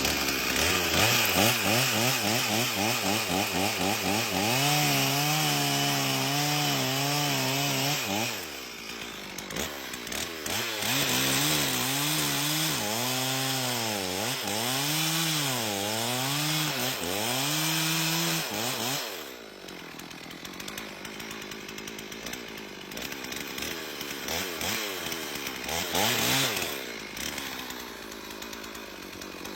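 Chainsaw cutting wood, its engine pitch rising and falling repeatedly as it works under load. There are two long loud stretches, then a quieter run through the last ten seconds or so.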